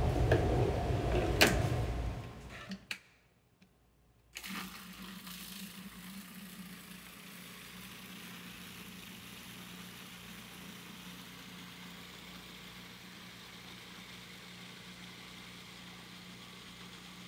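Food processor running on smoked eggplant, cutting off about two seconds in with a couple of sharp clicks. After a short gap, a fainter steady low hum carries on.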